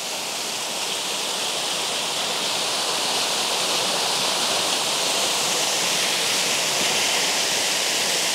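Waterfall and rocky creek rushing steadily, a dense even wash of water noise that swells slightly over the first few seconds.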